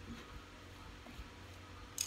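A metal spoon stirring minced raw meat in a ceramic bowl: a few faint clicks of the spoon on the bowl with a sharper click at the very end, over a low steady hum. The meat is being worked back and forth until it turns sticky and clumps together.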